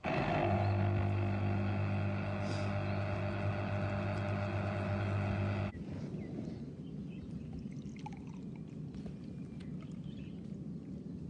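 A motor running with a steady low-pitched hum for about six seconds, then cutting off abruptly, leaving a quieter, rougher low rumble.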